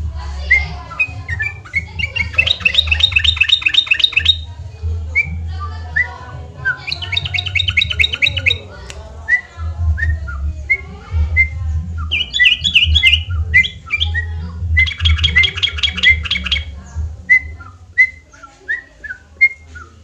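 Caged yellow-vented bulbul (trucukan) singing: four bursts of fast repeated chattering notes, each lasting a couple of seconds, with short single chirps between them.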